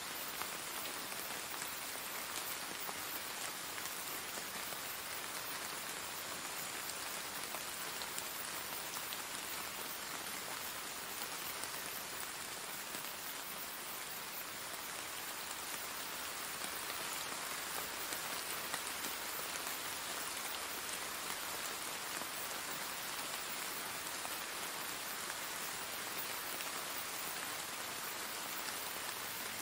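Steady rain falling on a surface: an even hiss with faint scattered drop ticks.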